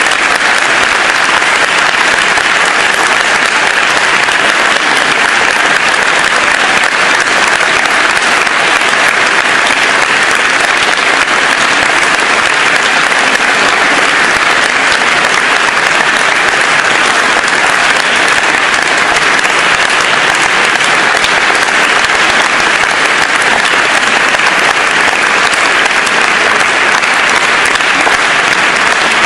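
Audience applauding: a long, steady round of clapping that keeps up without a break.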